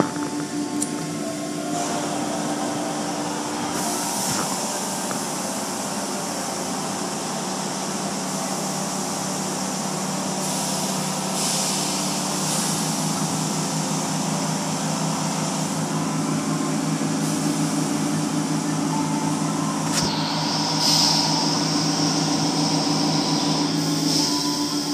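Automatic car wash heard from inside the car: a steady hiss of water spray and wash machinery, with louder surges of spray about ten and twenty seconds in.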